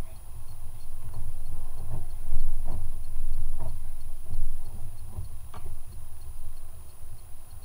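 Low, uneven rumble on a kayak-mounted camera from water moving against the hull and the boat, with a few light knocks from gear being handled in the kayak.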